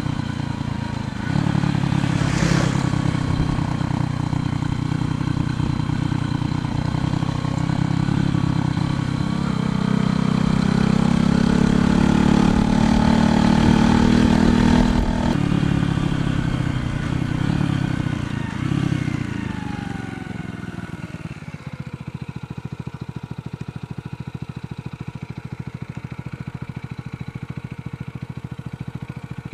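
A 125cc motorcycle engine running under way. It gets louder through the middle, then about two-thirds in settles to a quieter, slower, evenly pulsing low note as the bike eases off.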